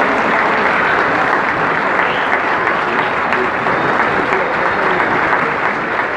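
Crowd applauding steadily, a dense, even clapping that neither builds nor fades.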